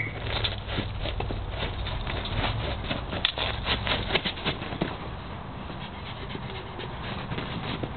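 A dog playing with a ball: a quick, irregular patter of paw steps, knocks and scrapes, busiest over the first five seconds and fainter after.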